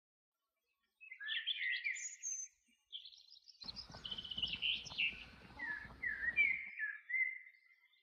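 Songbirds singing, starting about a second in: quick chirps and short warbling phrases with gliding notes, going on until near the end.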